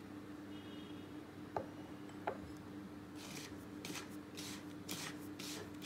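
Two light taps of a bowl, then a hand rubbing dry flour, milk powder and baking powder together in a bowl: a faint, rhythmic scratchy rustling, two or three strokes a second, starting about three seconds in. A low steady hum runs underneath.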